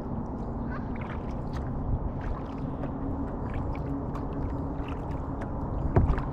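Water trickling and lapping against a kayak's hull as it glides, with many small drips and splashes over a steady low rumble; a sharper knock near the end.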